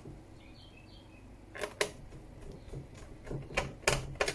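A few sharp plastic clicks and knocks as the laptop's plastic bottom access panel is fitted back on, with two clicks after about a second and a half and a quicker cluster of clicks near the end.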